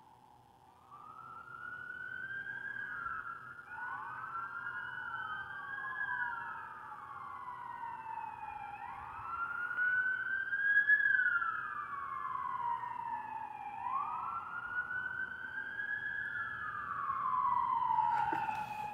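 Several sirens wailing at once, out of step with each other, each rising and falling in slow cycles of about four to five seconds. A short knock comes near the end.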